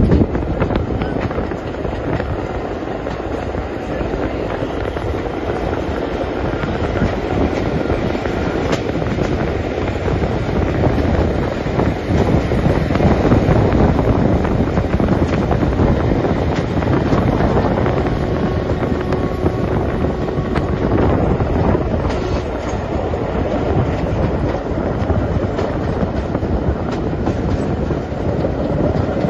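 Steam-hauled passenger train running along the rails, heard from a carriage window: a steady rumble of wheels on track with scattered clicks.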